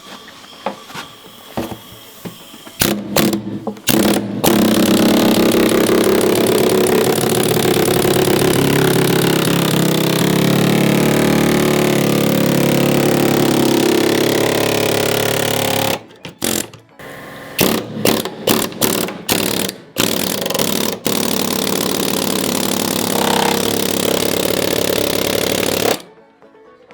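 Pneumatic zip gun cutting into the metal side of a mini fridge: a few short trigger bursts, then a steady run of about twelve seconds, then a string of short bursts and another steady run of several seconds before it stops near the end.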